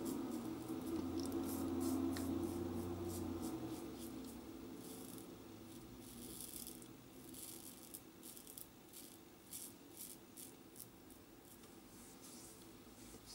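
Gillette Tech safety razor scraping through lathered stubble in many short strokes, a crisp rasp on each pass, during the touch-up pass of a wet shave. A steady low hum is heard at first and fades about four seconds in.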